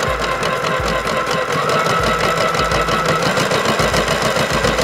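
Stove sound effect of a battery-powered Mel-chan toy kitchen: a steady electronic crackle imitating a burner fire, played through the toy's small speaker as its knob is turned on.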